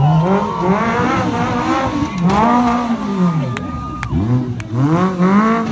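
Off-road race vehicle's engine revving up and down over and over, the throttle worked in short bursts as it crawls over rocks, with a few sharp clicks partway through.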